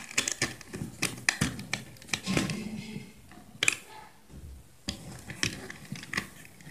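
Irregular small clicks, taps and scrapes of hands working a copper jumper wire onto the screw terminals of plastic electrical sockets on a board.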